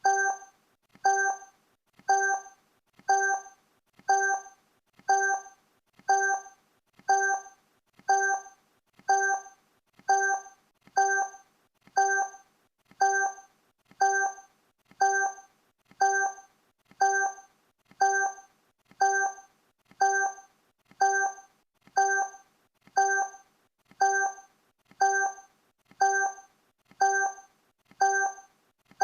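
Countdown timer sound effect: a short, pitched electronic tick repeating once a second, each one fading quickly.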